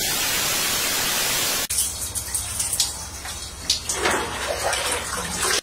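TV-static hiss for about a second and a half, cutting abruptly to the sound of running water, like a shower behind a curtain, over a steady low hum.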